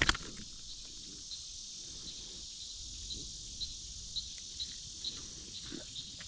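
Insects singing in a steady high chorus, with one chirp repeating about twice a second; a sharp click right at the start.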